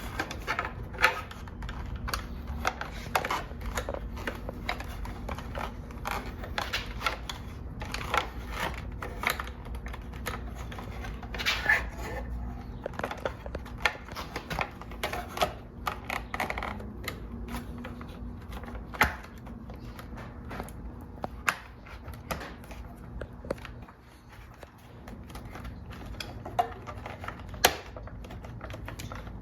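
Irregular clicks, taps and knocks of plastic motorcycle fairing panels and bolts being handled and fitted by hand, with a few sharper knocks standing out.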